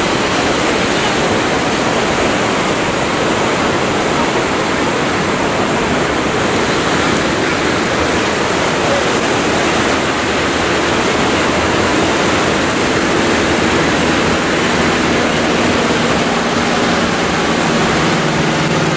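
A steady rushing wash of noise, with the drone of a light single-engine propeller plane's piston engine rising out of it over the last few seconds as the plane approaches.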